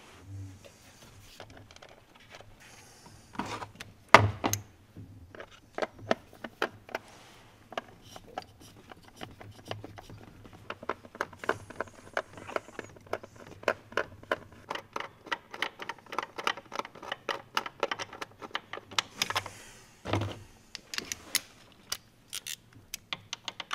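Hand ratchet clicking in long quick runs as small bolts are run down on top of a diesel engine, with a few louder knocks of tools against metal.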